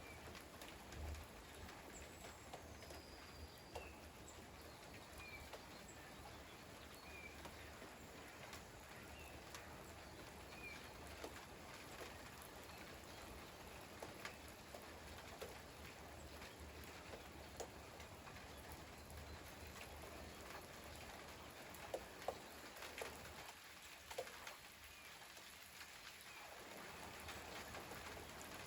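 Light rain falling, a faint steady hiss with scattered drips. A small bird gives short, high chirps about every two seconds through the first ten seconds or so.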